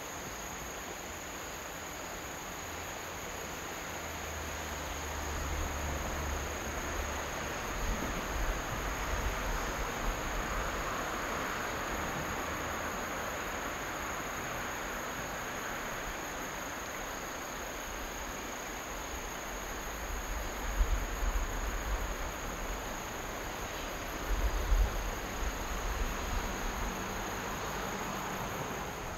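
Insects chirping in a steady, unbroken drone, with a few low rumbles underneath, the two loudest near the end.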